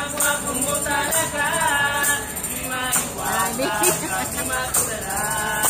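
A group of restaurant staff singing a birthday song together, with tambourines jingling on about two beats a second and hands clapping.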